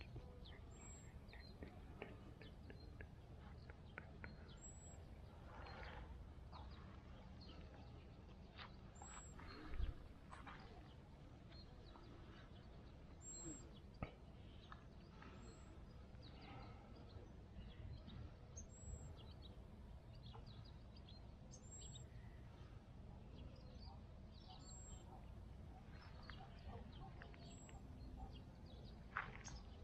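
Faint background of scattered bird chirps and calls, with one soft low thump about ten seconds in.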